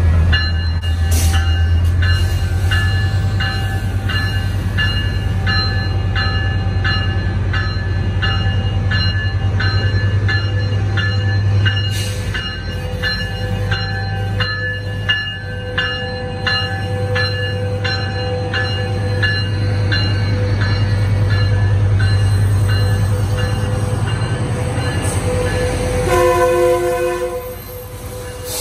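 Metrolink EMD F125 diesel locomotive pulling out with its engine running as a low hum and its bell ringing about twice a second. The bell stops, and a horn blast of about a second and a half sounds near the end.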